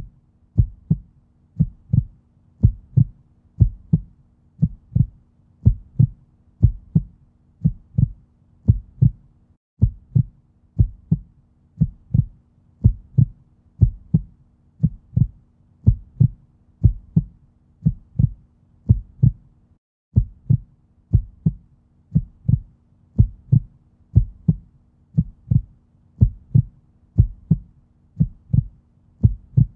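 Looped background track of low thumps in a steady, even rhythm over a faint held hum. The loop breaks off for a moment and restarts about every ten seconds.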